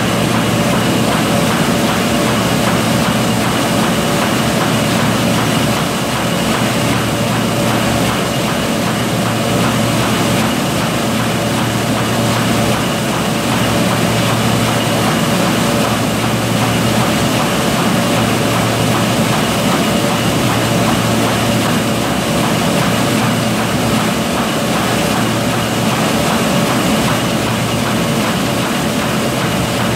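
Envelope-making machine running: a loud, steady mechanical drone, with a low hum that comes and goes every few seconds.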